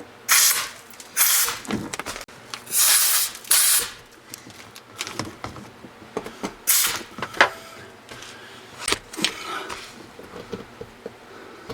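Compressed-air blowgun giving three strong hissing blasts, then several shorter puffs among small tool clicks and knocks, clearing dirt out of the recesses of Torx bolt heads.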